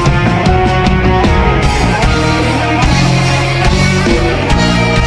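Live rock band playing an instrumental passage without singing: drums keep a steady beat under guitar and bass.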